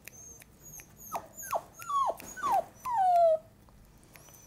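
Yorkshire Terrier puppy whining: about five short high whines, each falling in pitch, the last one longer and drawn out.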